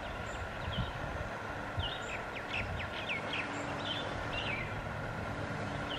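Small birds chirping: a scattering of short, falling chirps over a steady outdoor background hiss with a faint hum.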